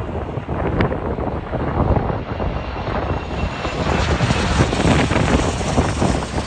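A jet airliner's engines passing close on landing approach, with a thin high whine coming in about halfway through. Storm wind buffets the microphone underneath.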